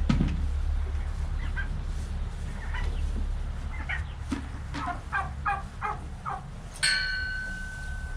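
Poultry (turkeys and chickens) clucking and calling in short bursts, with a quick run of about five calls in a row past the middle. Near the end a sudden clang rings on for over a second.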